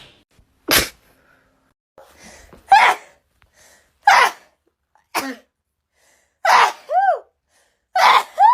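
A woman's fit of wet, snotty sneezes, about seven in quick succession, some preceded by a sharp gasping in-breath, the later ones ending in a voiced cry.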